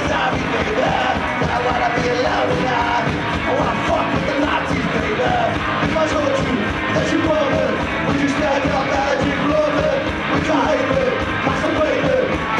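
Live garage rock played by a two-piece band: electric guitar over a steady drum beat, recorded from the audience.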